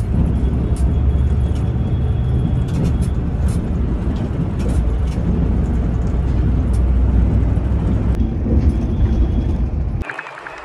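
Steady low rumble of a Volvo B11R coach on the move, its diesel engine and road noise heard from the front of the cabin, with a few faint ticks. About ten seconds in it changes abruptly to a thinner, lighter rushing sound.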